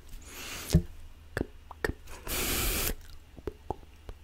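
Close-miked mouth sounds: scattered wet clicks and pops. There is a breathy hiss near the start and a louder hiss of about half a second just over two seconds in.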